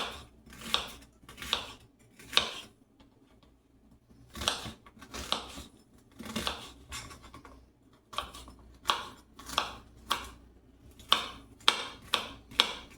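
A kitchen knife chopping onion on a cutting board: a string of separate crunchy cuts, roughly one or two a second, with a couple of short pauses.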